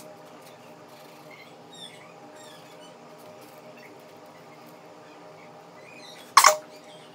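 Pencil drawing on paper: faint quick scratching and squeaking strokes over a steady low hum, with a sharp double knock about six seconds in.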